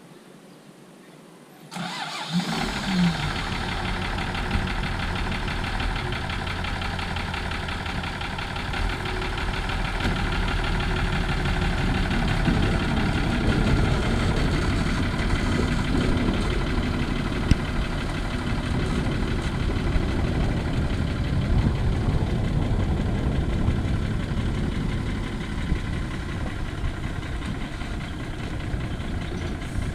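A truck's engine starts up abruptly about two seconds in, then runs steadily with a low rumble, growing a little louder in the middle.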